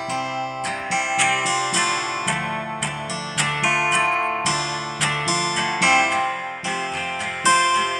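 GarageBand Smart Guitar's virtual acoustic guitar in Autoplay mode, strumming a repeating pattern on its own as the chords change from C to D minor to F.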